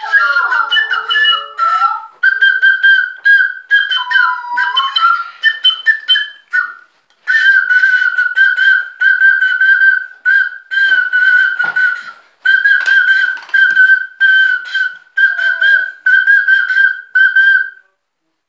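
Small plastic whistle blown in a long string of short, shrill blasts on one high, slightly warbling note, some blasts running together into longer toots. It stops near the end.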